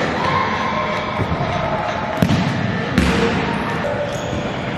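Futsal ball being kicked and bouncing on a hard indoor court, with two sharp hits a little under a second apart around the middle.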